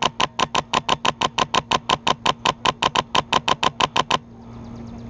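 Airsoft rifle firing a rapid string of shots, about seven a second, each a sharp close crack, stopping abruptly about four seconds in.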